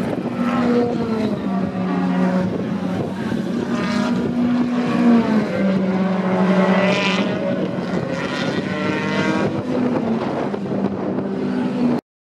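BMW BTCC touring car's engine running and revving as the spun car pulls away across the grass, its pitch rising and falling several times. The sound cuts off suddenly near the end.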